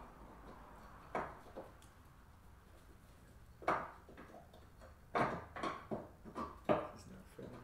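Scattered light metal clinks and knocks as a steel rear bumper and its mounting bolts are worked against a Jeep's frame by hand, with single knocks early on and a quick run of about six in the second half.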